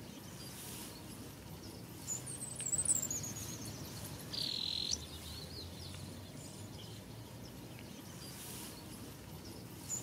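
Small birds calling: a run of high, quick twittering chirps a couple of seconds in, then a short buzzy note around the middle, with a few more high chirps near the end.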